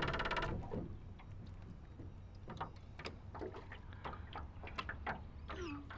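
A loud buzzing drone cuts off about half a second in, leaving faint water lapping with scattered light ticks over a steady low hum.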